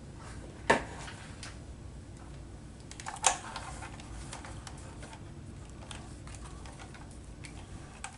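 Small hard objects being handled and set down on a workbench. A sharp knock comes under a second in and another about three seconds in, with scattered light clicks between them, over a steady low hum.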